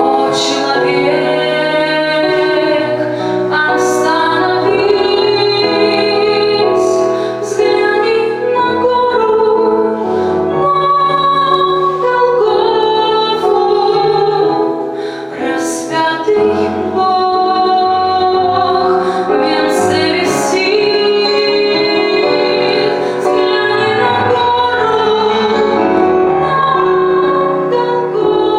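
Music: a woman singing a melody in long held notes over an instrumental accompaniment.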